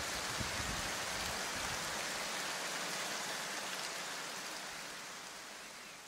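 Steady hiss of rain-like noise with a few low bumps in the first second, fading out over the last few seconds.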